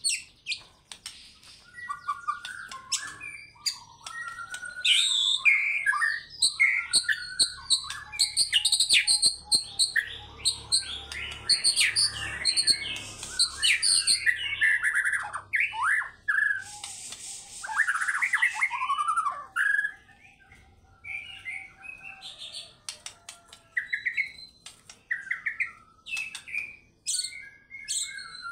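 White-rumped shama (murai batu) singing a long, varied song of loud whistled phrases and fast chattering trills, with short gaps between phrases. The phrases come thick for most of the stretch and grow shorter and sparser in the last third.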